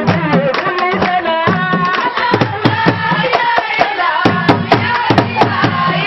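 A woman chanting a Sufi zikr (devotional chant) into a handheld microphone over a steady percussion beat of sharp strokes and low drum thuds.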